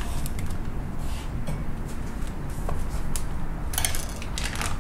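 Knife slitting open vacuum-sealed plastic sous vide bags, the plastic crinkling in a few sharp crackles, the loudest near the end.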